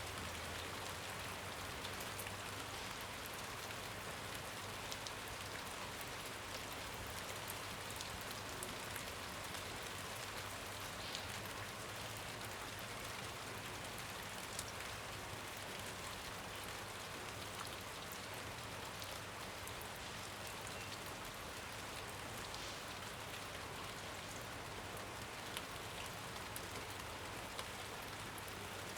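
Steady rain falling, a continuous even hiss with scattered drop patter.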